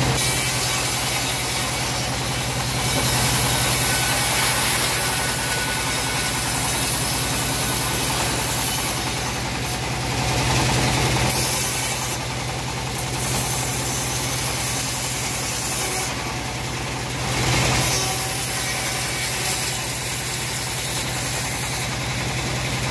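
Homemade engine-driven bandsaw running steadily, with a strong low engine hum and a high hiss that drops away briefly a few times.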